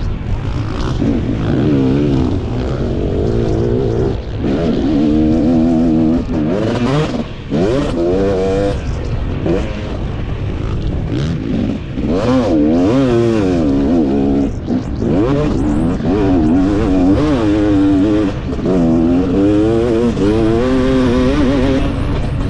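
KTM 250 two-stroke motocross engine racing: revving hard and dropping off again and again as the bike accelerates, shifts and shuts off for corners and jumps, heard close up from on the bike.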